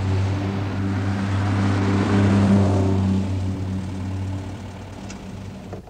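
Volkswagen Beetle's air-cooled flat-four engine running at a steady pitch as the car drives up and pulls in to the kerb, loudest about two seconds in and then fading away.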